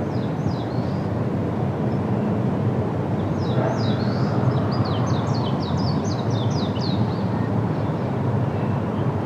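A small bird calling a quick run of short, high, downward-sweeping chirps, about four a second, for several seconds in the middle, with a few single chirps near the start. It sits over a steady low background rumble.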